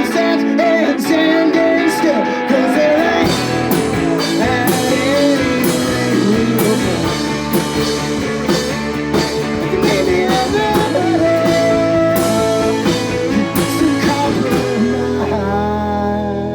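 Live rock band playing: guitars, bass and drums with singing. The drum hits stop about fifteen seconds in and a chord is held as the song winds down.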